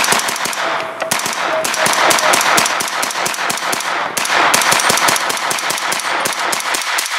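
Rapid gunfire: many shots in quick, overlapping succession, a near-continuous volley with short breaks about one second and four seconds in.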